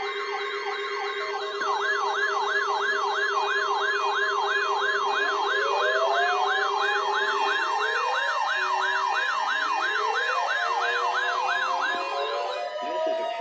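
Several NOAA weather radio receivers alarming together, set off by the 1050 Hz warning alarm tone of a weekly test: a steady tone under a fast warble about twice a second, with other receivers' slow rising siren sweeps joining in about five seconds in. The steady tone and warble stop shortly before the end while the sweeps carry on.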